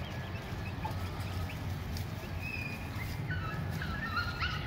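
Faint short bird chirps and calls, a few more near the end, over a steady low outdoor rumble.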